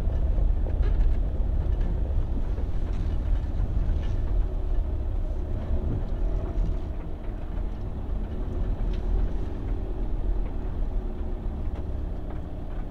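A car's engine and tyres rumbling as it drives slowly along a dirt track. The rumble is low and steady and eases a little in the second half as the vehicle slows.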